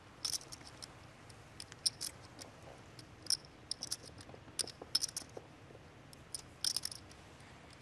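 Poker chips clicking together as they are handled at the table: sharp, irregular clicks, often in small clusters, over a faint room hum.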